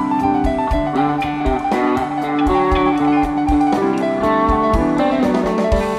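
Live jam-band rock music: electric guitar melody lines over bass and a steady drum beat.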